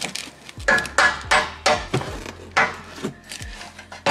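A hammer striking steel in a run of about eight sharp, ringing blows at an uneven pace, knocking the rear camber bolt's adjustment nut into its seat.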